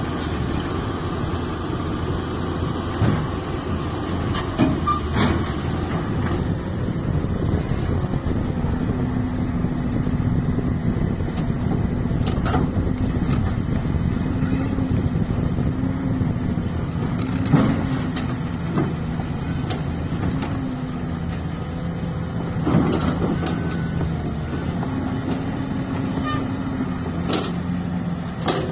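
XCMG XE215BR crawler excavator's diesel engine running steadily while it drives down off a lowboy trailer, with track clanking and several sharp metal knocks, the loudest about halfway through, as the machine tips over the trailer's end and comes down onto the ground.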